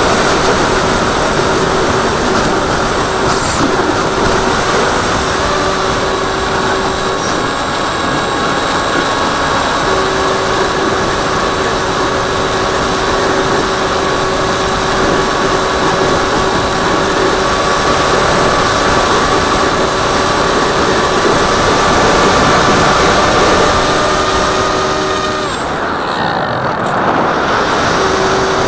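AXN Floater Jet RC foam plane in flight: wind rushing over the microphone, with the steady whine of its electric motor and propeller. The whine stops about three seconds before the end and comes back just before the end.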